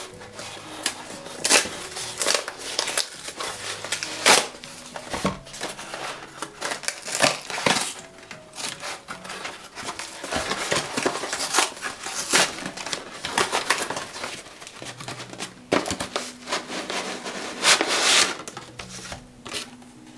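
Kraft paper and cardboard packaging torn open and rustled by hand, a run of irregular crinkles and short rips as a parcel is unwrapped. Soft background music plays underneath.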